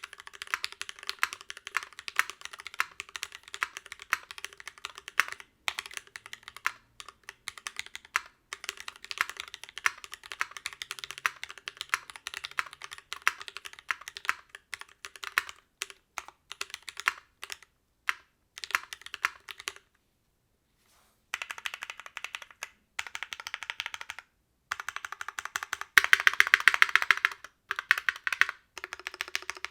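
Typing on a Duck Eagle v3 mechanical keyboard with lubed, filmed Gateron Ink black v2 switches in an aluminium plate and a silicone internal dampener: a fast, continuous run of clacky keystrokes with a high-pitched edge. About two-thirds through, the typing pauses for a second, then resumes in bursts, loudest a few seconds before the end.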